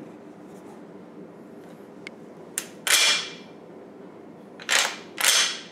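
Steel bolt of a MAS Mle 1944 semi-automatic rifle being worked by hand with its cocking handle, giving sharp metallic clacks: one about three seconds in, then two close together near the end as the bolt is drawn back and let run forward.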